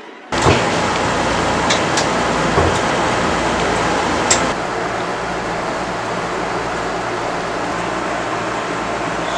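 Air conditioner running with a loud, steady rush of blowing air that starts abruptly just after the start. A few sharp clicks sound over it in the first few seconds.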